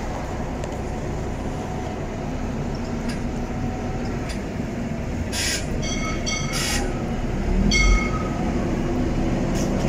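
Steady low rumble of a passing vehicle, with short high-pitched squeaks about five and a half seconds in and again near eight seconds, and a dull thump near eight seconds.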